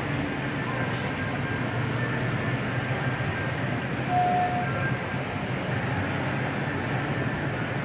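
HO-scale model trains running on a layout: a steady hum and rumble of the trains with the exhibition hall's background noise, and a short clear tone a little over four seconds in.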